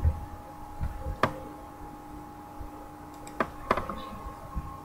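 A faint steady electrical hum with three sharp clicks, one about a second in and two close together later on.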